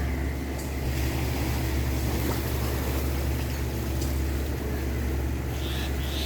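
Boat engine running at a steady low drone, with wind and water noise over it.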